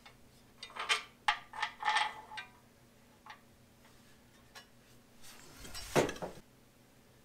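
Light metal clicks and taps from a hand handling bolts and brackets on the engine block and cradle, a few in quick succession about a second in. A louder rubbing bump comes near the end.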